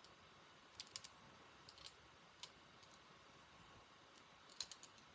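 Near silence broken by a few faint, sharp little clicks in small clusters, about a second in, around two seconds and near the end, from the thread bobbin and thread being handled at the fly-tying vise.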